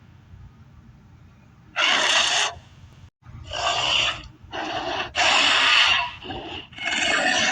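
Carcharodontosaurus creature sound effects: a run of about six raspy roars and growls in quick succession, beginning about two seconds in after a near-silent start.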